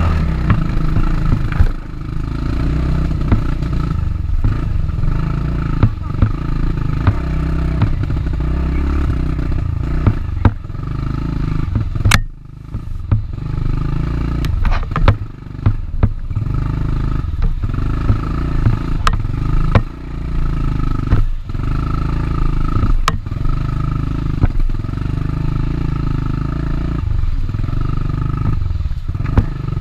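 Dirt bike engine running hard under race throttle, with brief drops in level and sharp clicks and knocks scattered throughout.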